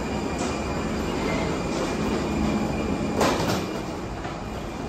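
Steady vehicle running noise: a low rumble with a constant whine over it, and a single sharp clunk about three seconds in.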